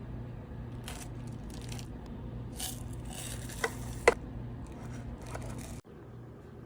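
Food being handled while spam musubi is assembled: brief scrapes and rustles, with two sharp clicks about three and a half and four seconds in, over a steady low hum.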